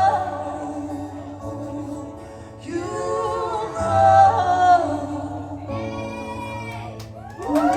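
Live band playing with a singer holding sung phrases over a steady bass, the song winding down. Near the end the crowd starts to cheer.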